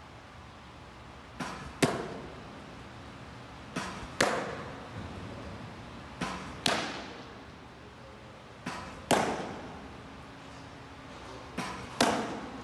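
Pitches popping into a baseball catcher's mitt, five loud sharp pops about two and a half seconds apart, each trailing off with a short echo. About half a second before each pop comes a softer knock as the pitch is launched.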